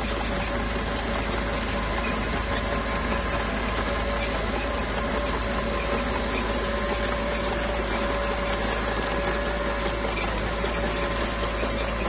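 Small bulldozer's engine running steadily, with a steady whining tone held above the engine noise.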